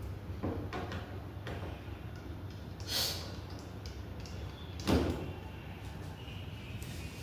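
Plastic fibre-optic splice box being opened and handled: scattered clicks and scrapes, with the loudest knock about five seconds in, over a steady low hum.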